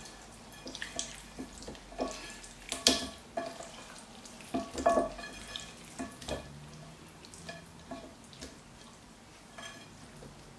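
Raw chicken drumsticks coated in olive oil and spices being mixed by gloved hands in a ceramic bowl: irregular wet squishes and slaps with light knocks, loudest about three and five seconds in.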